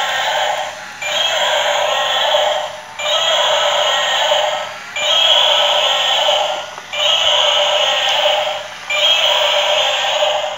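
Battery-operated toy dinosaur playing its electronic sound through a small, tinny speaker: the same short clip of under two seconds repeats about every two seconds with brief gaps between.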